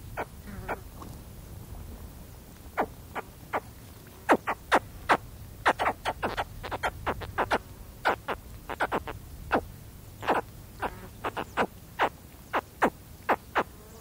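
Baby spectacled caimans giving close-up contact calls: short, sharp chirping calls in an irregular series, a couple at first, then coming thick and fast from about three seconds in. Faint wind rumbles low underneath.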